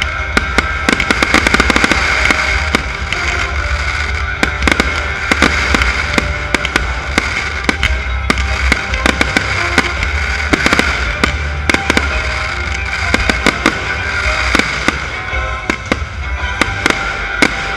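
Fireworks display: rapid loud bangs and crackles, several a second, over music playing with the show.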